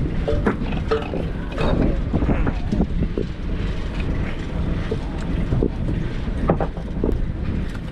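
Fishing boat's engine running steadily, with wind buffeting the microphone and scattered knocks and clatter on deck.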